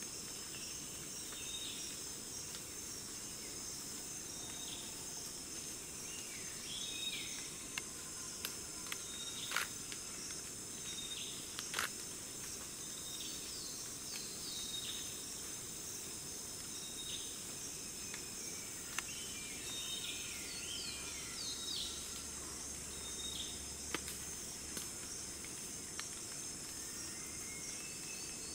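Tropical rainforest insects in a steady, high-pitched chorus, with many short, falling bird calls scattered through it and a few sharp clicks.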